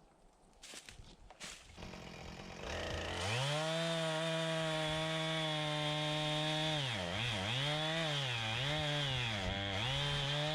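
Chainsaw coming up to speed about three seconds in and running at a steady high pitch, its note dipping and recovering several times in the middle.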